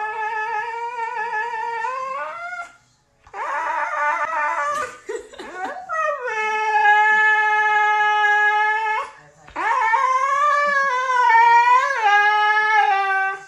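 Husky howling in a run of long drawn-out calls, each held fairly steady for several seconds. A shorter, rougher whine comes between the first two long howls.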